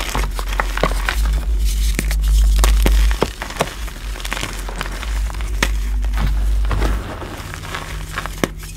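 Hands crushing dry reformed gym chalk in a tray of loose chalk powder: many small, irregular crunches and crackles over a low rumble, the rumble easing off near the end.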